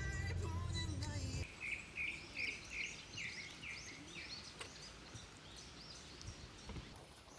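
Background music cuts off about a second and a half in. A bird then sings a quick run of about eight short falling notes over faint outdoor ambience.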